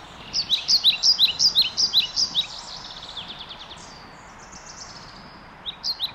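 A small songbird singing: a fast run of high, down-slurred notes lasting about two seconds, a softer run after it, and another loud run starting near the end, over a steady background hiss.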